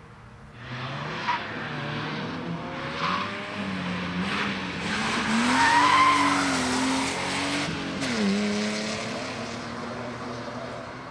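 BMW E36 328 coupe's straight-six revving hard as it drifts through a cone slalom, its pitch rising and falling, with short tyre squeals at about one and three seconds in and a longer squeal in the middle as it passes closest. Near eight seconds the revs drop sharply and climb again.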